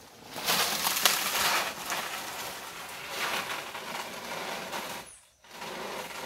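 Dry palmyra palm fronds rustling and crackling, loudest from about half a second to two seconds in, then continuing more softly and unevenly.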